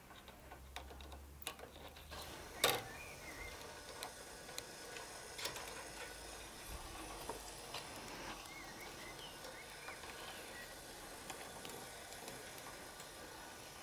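Metal skewers being set into the notched rack of a charcoal mangal grill: scattered metallic clicks and clinks, the loudest about two and a half seconds in.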